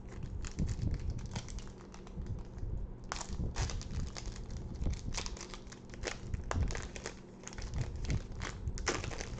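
Foil wrapper of a Pokémon card booster pack crinkling as it is handled, a dense run of small irregular crackles.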